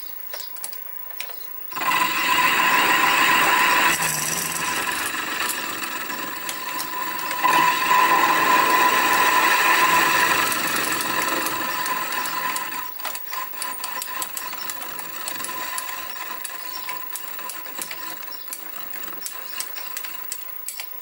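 Sieg SX2P mini mill's four-flute end mill milling the mounting face of a Stuart S50 steam engine cylinder, a steady whine with grinding cutting noise. The cut starts loud about two seconds in, then drops to quieter running with scattered light ticks from about thirteen seconds on.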